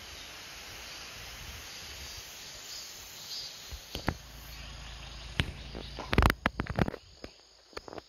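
Steady outdoor hiss with insects buzzing, then a cluster of sharp knocks and clicks from about four to seven seconds in, the loudest just after six seconds.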